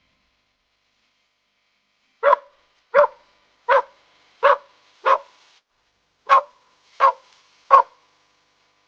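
A dog barking eight times: a run of five regular barks, a short pause, then three more.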